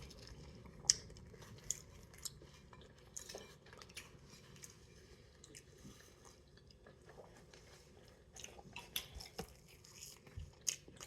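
Close-up chewing of veggie pizza: soft wet mouth clicks and smacks, sparse at first and coming thicker near the end.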